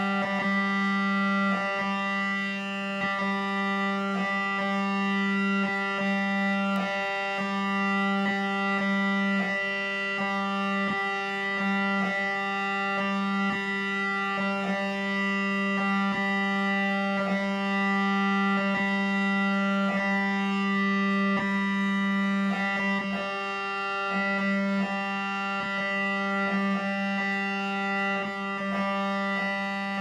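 Electronic drone music made from layered, unaltered MRI machine recordings: a loud, steady low hum with a stack of higher held tones above it, crossed by frequent short clicks at uneven spacing.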